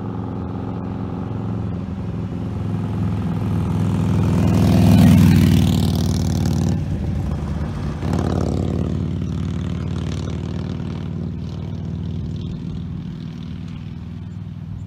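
2008 Harley-Davidson Nightster 1200's V-twin through a Vance & Hines Blackout 2-into-1 exhaust, the motorcycle riding up and passing under power, loudest about five seconds in. After an abrupt change about seven seconds in it is heard again pulling away and fading.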